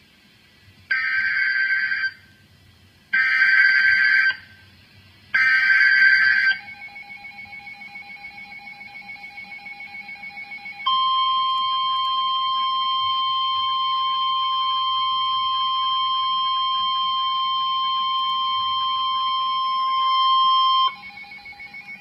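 Emergency Alert System activation on NOAA Weather Radio: three short bursts of screeching digital SAME header data, then, about eleven seconds in, the steady single-pitch warning alarm tone held for about ten seconds. It signals that a new warning, here a flood warning, is about to be read.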